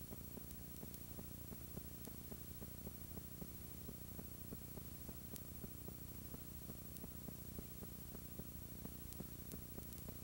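Faint analogue video static: a steady low hum and hiss with a fast, even crackle of small ticks.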